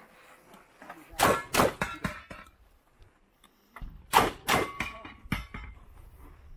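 Side-by-side double-barrel shotgun firing two quick pairs of shots, one pair about a second in and the other about four seconds in, with clicks and clanks of the action being reloaded in between. Hit steel targets give a short ring after the second pair.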